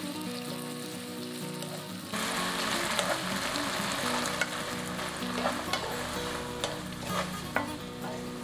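Shrimp and garlic scapes sizzling in a nonstick wok while being stirred with a wooden spatula. The sizzle grows louder about two seconds in, and the spatula knocks sharply against the pan a few times.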